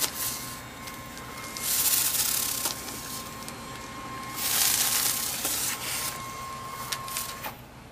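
Electric power awning on a truck camper running out, its motor giving a thin steady whine that cuts off about seven and a half seconds in as the awning reaches full extension. Two brief rushes of hiss come over it, near two seconds and near five seconds in.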